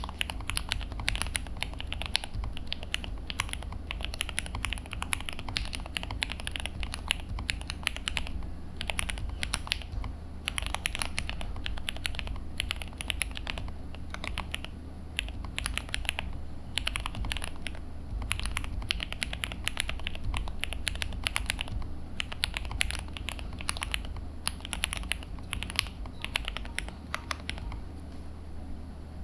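Keys of a Zuoya GMK104 mechanical keyboard being typed on in fast, continuous runs of clicks, with brief pauses now and then. A steady low hum runs underneath.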